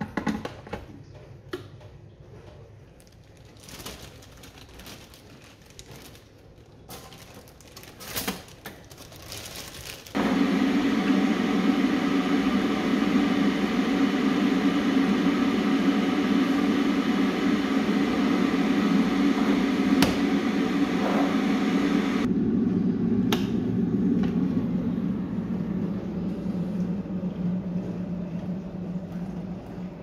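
A white De'Longhi electric kettle is switched on with a click, and after some faint handling knocks it heats loudly with a steady rumble and hiss. About two-thirds of the way through, the higher part of the sound cuts off sharply as the kettle reaches the boil, and a lower rumble fades away after it.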